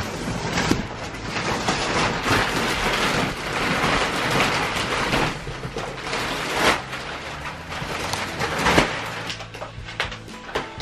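Thick plastic film being pulled and peeled off a vacuum-compressed mattress: continuous crinkling and rustling, with a couple of louder crackles in the second half.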